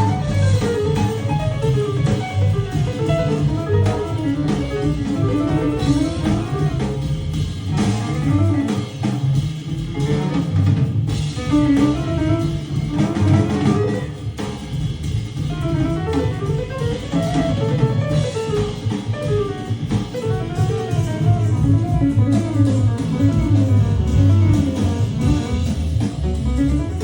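Guitar-led music with drums and bass played back through a pair of Cabasse Minorca MC40 three-way bookshelf speakers during a listening demo.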